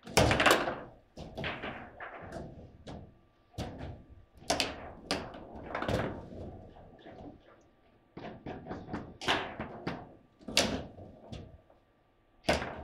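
Table football (foosball) table in play: the ball struck by the plastic figures and bouncing off the table walls, with the rods knocking, in an irregular series of sharp knocks and bangs that come in quick clusters.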